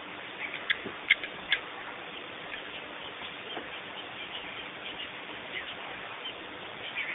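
Wild bird calls: three short, sharp high notes in quick succession about a second in, then fainter scattered calls, over a steady background hiss.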